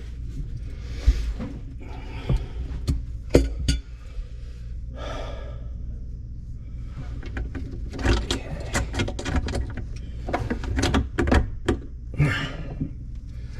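Scattered clicks, knocks and clatter of plastic drain fittings and hand tools being handled under a kitchen sink, busiest about eight seconds in.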